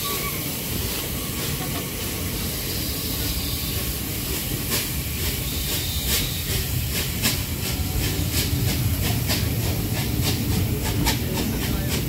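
Bulleid Pacific steam locomotive No. 34070 passing close by with a steady hiss of steam and a low rumble. Its coaches follow, their wheels clicking over the rail joints from about five seconds in, the clicks coming faster near the end.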